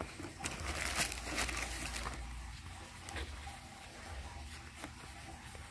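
Plastic bubble wrap and packaging rustling and crinkling as a hand rummages in a cardboard box and lifts out a small product box. Busiest in the first two seconds, then a few scattered light clicks.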